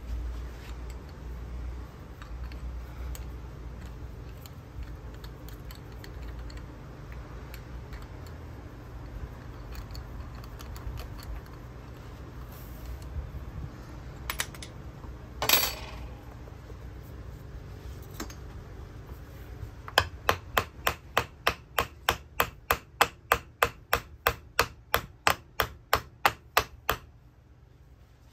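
Hand-tool work on a 24 V starter motor housing clamped in a bench vise, over a low steady hum. There is a brief noisy scrape about halfway, then a run of sharp, evenly spaced clicks, about three a second for some seven seconds, which stops abruptly near the end.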